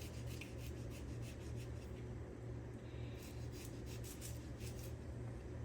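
Kitchen knife working a shallot on a cutting board: light, irregular slicing and scraping strokes, several a second, over a steady low hum.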